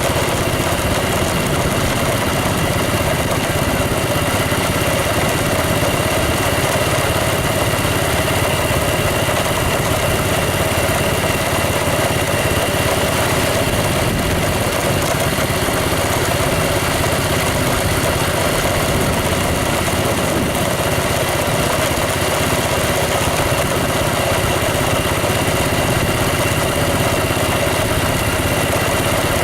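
An engine running steadily, without pauses or revving.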